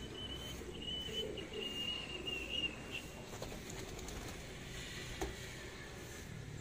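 Pigeons cooing low and wavering, over a thin high whistle held at one pitch in broken stretches for the first three seconds. There is one sharp knock about five seconds in.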